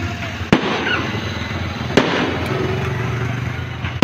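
Aerial fireworks shells bursting in sharp bangs, two about a second and a half apart and a third at the very end, over a steady low hum.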